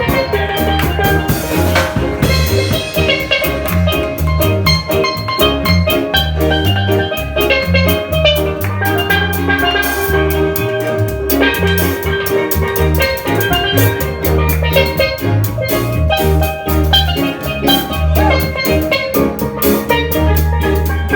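A live band playing an instrumental number: drum kit keeping a steady beat under a moving bass line, with a bright melodic instrument carrying the tune.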